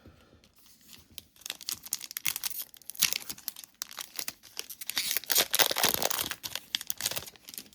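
A foil trading-card pack being torn open, its wrapper crinkling and crackling in bursts of sharp clicks, loudest around the middle and toward the end.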